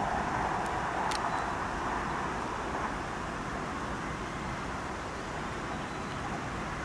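Steady hum of road traffic, easing slightly about three seconds in, with a single short click about a second in.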